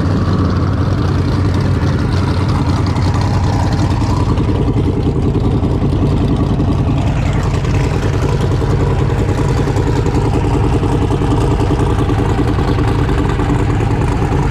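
A street-race vehicle's engine idling loud and steady, with a deep, even tone.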